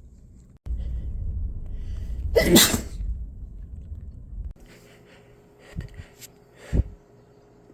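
One loud sneeze about two and a half seconds in, over a steady low rumble that stops suddenly about two seconds later. Two short, quieter bursts follow near the end.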